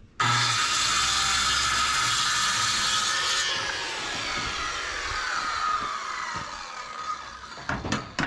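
Corded circular saw starting and ripping a wooden board lengthwise for about three seconds, then released and spinning down, its whine falling in pitch over several seconds. A couple of knocks near the end.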